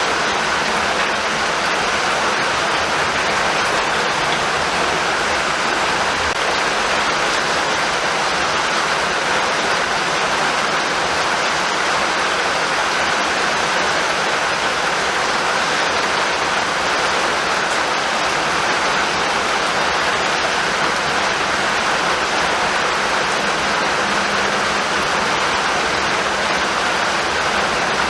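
Steady rainfall, a constant even hiss of drops with no break or change in intensity.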